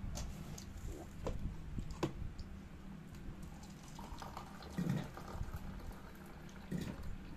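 Faint, scattered wet smacks and clicks of a man eating fried chicken with his hands and chewing. Two soft low knocks come about five and seven seconds in.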